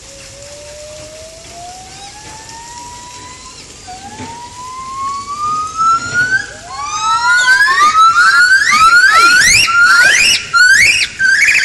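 Yellow-cheeked gibbons (Nomascus gabriellae) singing a great call: a long, slow, rising whoop, then a second one, then shorter notes that sweep steeply upward, coming faster, higher and louder from about halfway through.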